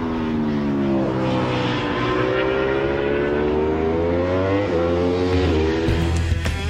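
Motorcycle engine running at high revs, its pitch dipping and climbing several times over a steady low drone.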